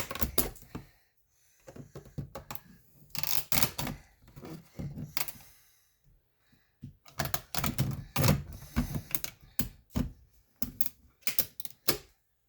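Irregular clusters of sharp clicks and knocks with short scrapes, from hands and tools working on a Smart car's plastic door trim and fasteners.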